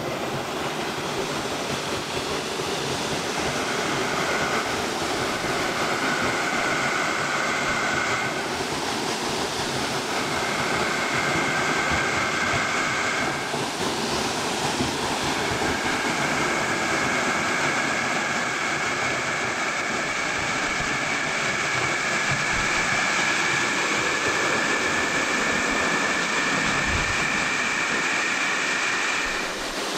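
Stream water running steadily, with a thin, high two-tone whine over it that drops out twice and comes back, rising slightly in pitch near the end.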